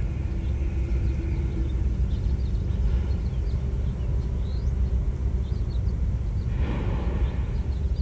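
Outdoor background noise: a steady low rumble with faint, scattered high chirps, and a soft hiss that swells briefly about seven seconds in.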